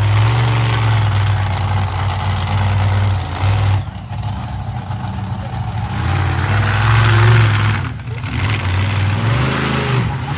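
Monster truck engine running hard and revving as the truck drives around a dirt arena. The throttle is briefly lifted about four seconds in and again about eight seconds in, and there are rising and falling revs near the end.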